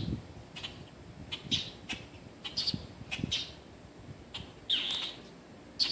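A baby bird giving short, high, sharp chirps, irregularly about one or two a second, the loudest a longer call sweeping down in pitch near the end. Soft low thumps come between the calls.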